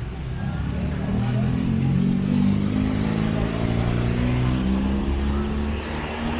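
A motor vehicle's engine running close by with a steady low hum, growing louder over the first two seconds and then holding.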